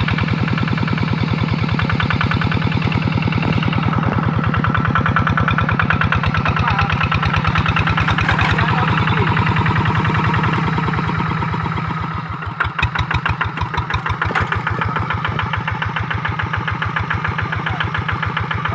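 Engine of a rice-paddy ploughing tractor running with a fast, even firing beat. About twelve seconds in it drops a little in level and the beat becomes more distinctly pulsed.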